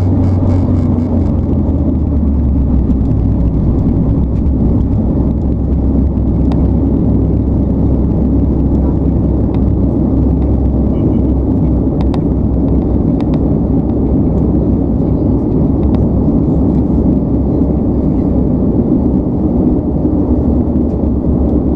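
Inside the cabin of a Bombardier Dash 8 Q400, the turboprop engines and six-blade propellers make a loud, steady, low drone as the airliner rolls along the ground after landing.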